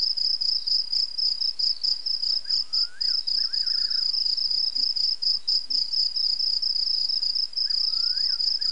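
Night insects chirping in a fast, steady, high-pitched pulse. A fainter wavering, whistle-like call sounds underneath about two and a half seconds in and again near the end.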